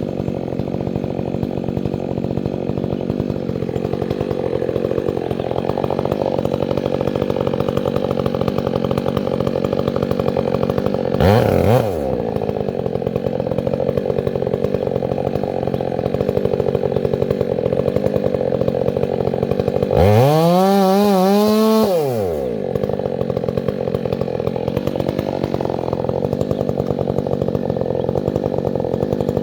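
Chainsaw engine idling steadily, blipped briefly about a third of the way in, then revved up and back down for about two seconds about two-thirds of the way in.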